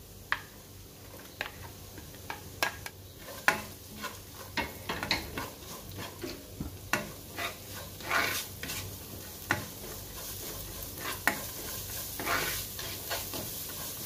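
Chopped onions sizzling in hot oil in a non-stick frying pan, freshly added and being sautéed. A spatula scrapes and taps against the pan at an irregular pace, and the frying grows louder in the second half.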